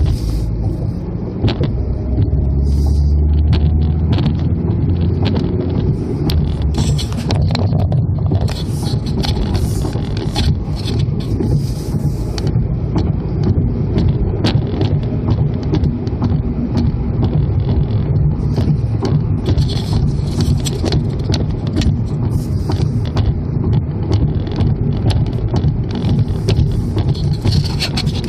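Steady road and wind noise of a car driving at highway speed, a low rumble with many small clicks and rattles scattered throughout.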